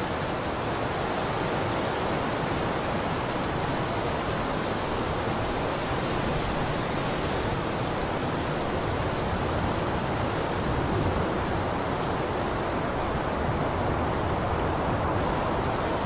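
Steady wind sound effect: an even rushing noise that holds at the same level throughout, with no gusts.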